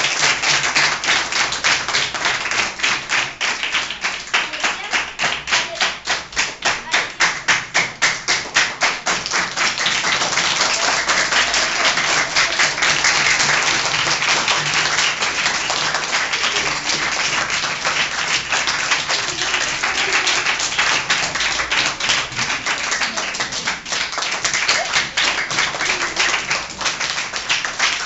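A class of schoolchildren applauding, many hands clapping; for several seconds near the start the clapping falls into a steady beat together.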